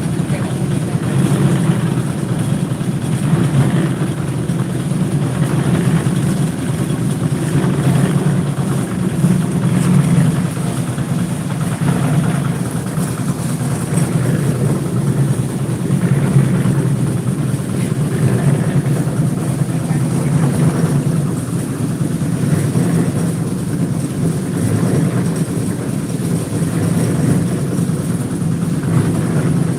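A large engine running steadily, a continuous low drone with no breaks or changes in speed.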